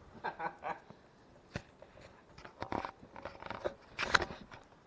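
Footsteps crunching through deep snow, with short bits of quiet voices in between.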